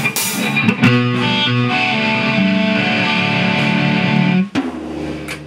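Electric guitar played through an amplifier, holding long ringing notes and chords. The sound drops away sharply about four and a half seconds in, leaving a quieter low note.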